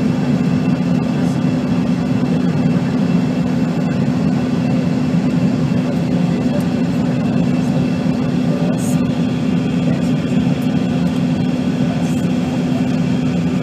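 Steady cabin noise inside a Bombardier CRJ200 regional jet on its landing approach: the rush of airflow and the low, even drone of its rear-mounted General Electric CF34 turbofan engines.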